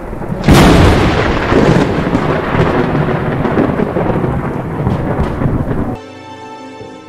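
Thunder sound effect: a loud thunderclap about half a second in, then a long rolling rumble that slowly eases. Music with sustained notes takes over about six seconds in.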